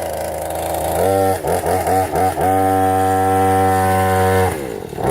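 Chainsaw engine idling, then blipped several times about a second in and held at high revs for about two seconds before dropping back to idle near the end.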